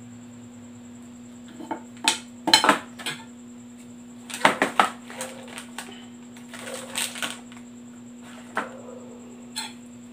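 Metal fork clinking and scraping on a glass plate while mixing instant noodles, an irregular scatter of sharp clinks starting about a second and a half in. A plastic seasoning sachet crinkles in the middle.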